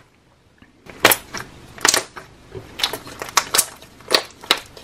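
Hands squeezing and kneading a thick butter slime, giving a string of irregular sharp clicks and pops. They start about a second in.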